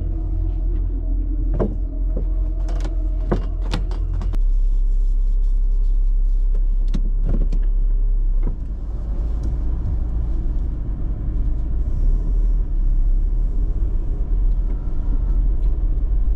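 Steady low rumble of a vehicle in motion, heard from inside, with a few sharp clicks and knocks in the first four seconds.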